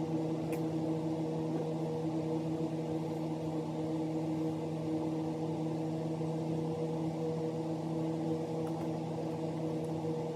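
A machine motor running with a steady, even low hum, unchanging throughout.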